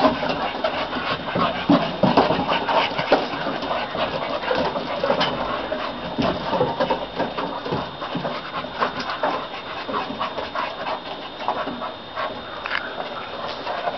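Boston bull puppies playing, panting with a dense, irregular run of small grunts and whines.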